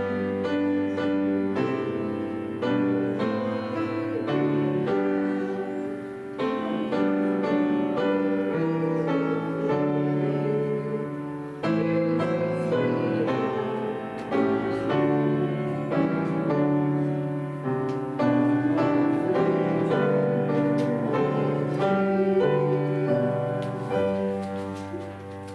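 Solo piano playing a chordal instrumental piece, the notes changing about every second.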